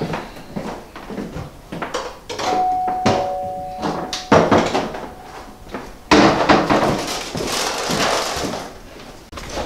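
A two-tone doorbell chime, a higher note followed by a lower one (ding-dong), rings about two and a half seconds in, among footsteps and cupboard-door knocks. From about six seconds in there is a loud rustling for a couple of seconds.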